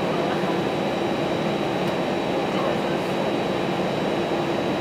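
Steady cabin noise inside a Batik Air jet airliner taxiing at low power: an even rush of engine and air-conditioning noise with a low hum and a thin, steady high whine.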